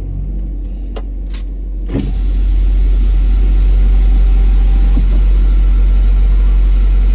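Car engine running, heard from inside the cabin as a deep, steady rumble that gets louder about two seconds in and then holds. A few sharp clicks come before the rumble swells.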